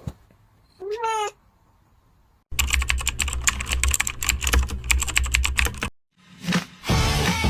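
A cat meows once, rising in pitch. Then comes about three and a half seconds of fast clattering computer-keyboard typing over a low hum, and music starts near the end.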